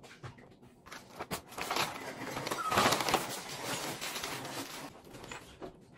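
Paper fast-food bag and food wrappers rustling and crinkling as takeout is unpacked, with the loudest crackle about three seconds in.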